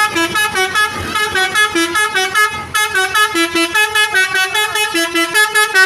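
Basuri V3 telolet horn playing a fast melody: short horn tones stepping up and down about four or five notes a second, with an occasional note held a little longer.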